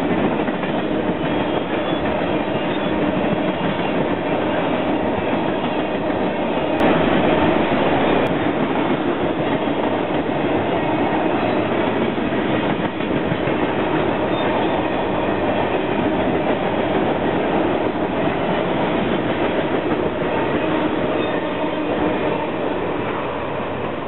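Oil train's tank cars rolling across a steel truss railroad bridge, wheels running steadily on the rails; the sound eases a little near the end as the last cars clear the bridge.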